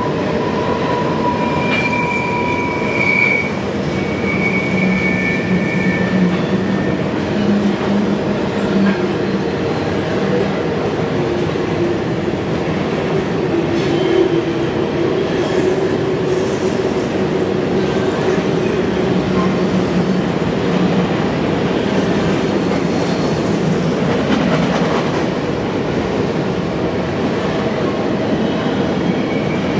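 Freight train of covered hopper cars rolling past close by on a curve: a steady loud rumble of wheels on rail, with thin high wheel squeals in the first few seconds.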